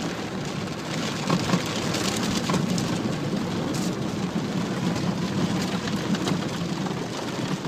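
Rain on a vehicle's roof and windshield mixed with the wash of muddy floodwater against the tyres and underbody as the vehicle drives through a flooded road, heard from inside the cab. It is a steady rushing noise over the engine's low hum, with scattered sharp ticks.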